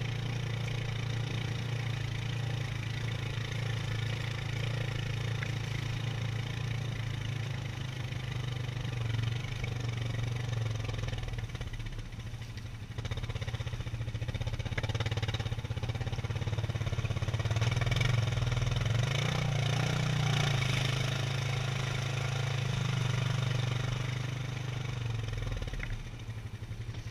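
ATV engine running steadily while riding, a continuous low drone that grows louder and a little higher partway through, then eases off near the end.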